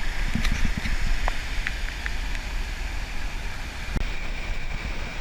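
Wind buffeting the microphone over the steady wash of surf, with a few faint clicks in the first couple of seconds.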